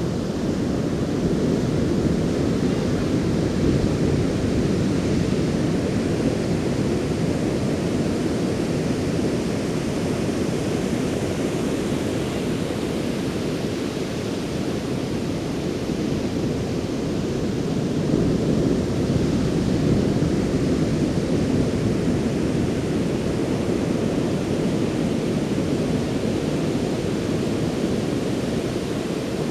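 Ocean surf washing onto a beach shore, a steady low rushing that swells slightly twice, a few seconds in and again about two-thirds of the way through.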